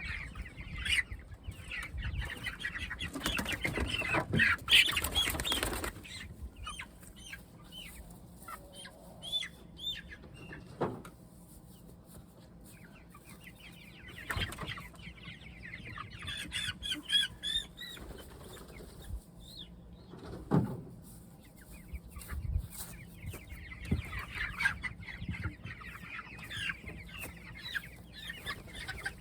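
Young Cornish cross meat chickens clucking and cheeping while being handled, with a loud burst of wing flapping a few seconds in. A few sharp knocks follow later.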